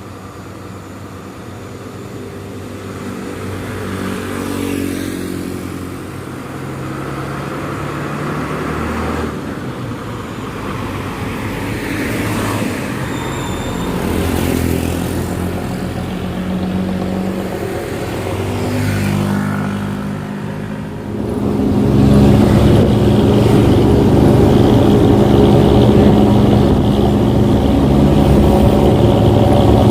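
Bus engine running through a modified "ngorok" growling exhaust, its note climbing in steps as it accelerates, dropping back and climbing again. About two-thirds of the way in it becomes much louder and holds steady.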